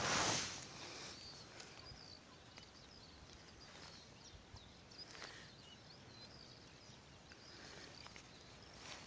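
A brief rustle of dry grass right at the start, then quiet outdoor ambience with faint, short, high chirps of distant birds scattered through it.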